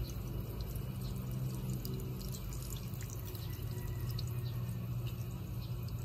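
Water from a garden hose running into a jet ejector's pressure-pipe port and welling up out of its main port, splashing and dripping onto concrete, over a steady low hum. This is the return flow that the ejector uses to help push well water upward.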